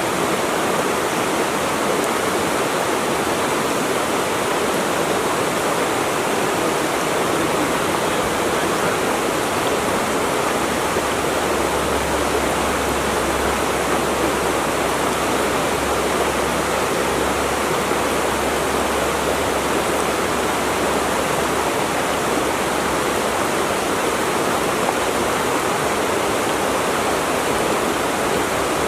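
Steady rush of flowing water, an even, unbroken splashing roar.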